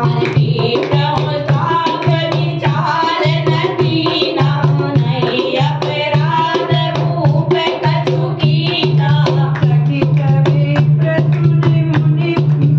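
A woman singing a devotional chant while playing a dholak, a two-headed barrel drum, with rapid hand strokes over its deep, resonant bass head.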